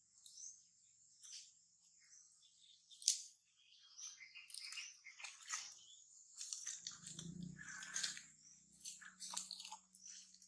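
Faint, irregular crunching and crackling clicks over a steady high-pitched insect buzz. A low steady hum comes in about seven seconds in.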